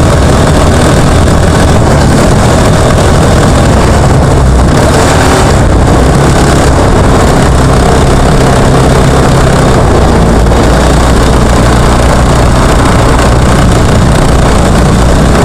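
Junior trophy kart's engine running steadily, picked up by an on-board camera so loud that it sounds distorted, with rumble and noise from the kart over the dirt track.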